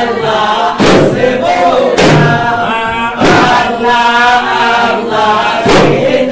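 Group of men chanting together in a rhythmic, repeated devotional chant, with a loud drum stroke a little more than once a second.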